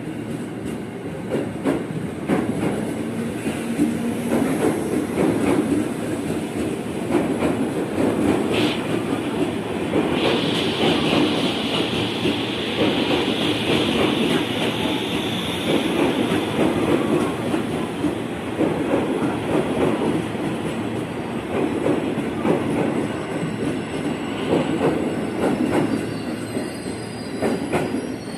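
JR 205 series electric commuter train pulling out and rolling past, its wheels knocking steadily over rail joints. A high steady wheel squeal comes in about ten seconds in and lasts several seconds.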